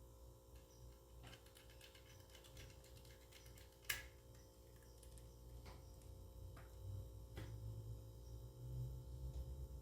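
Faint, scattered small clicks and taps of a screwdriver and small parts being handled while an SSD is screwed into a laptop, with one sharper click about four seconds in, over a low hum.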